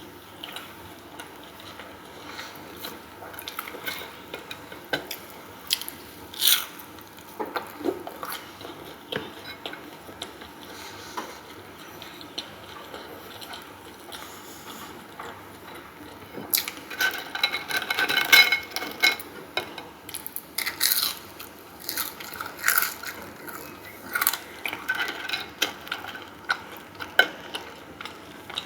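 Close-up eating sounds: a person biting and chewing food, with many short sharp clicks and smacks, busiest in a stretch about two-thirds of the way in.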